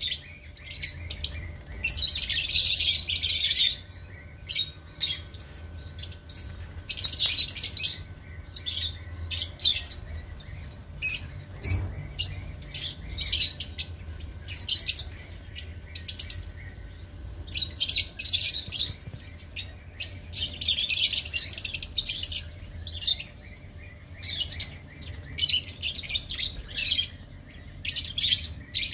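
Lovebirds chattering: repeated bursts of shrill, high chirping, some a second or two long, over a steady low hum.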